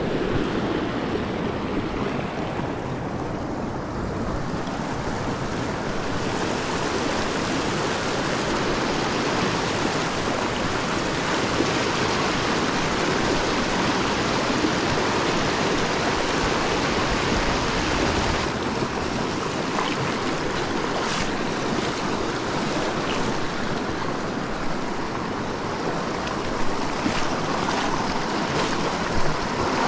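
Small mountain stream running fast, a steady rushing of water, with a couple of short ticks near the end.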